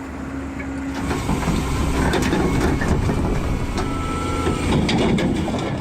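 Heavy vehicle engine running under load, with rattling and scattered knocks.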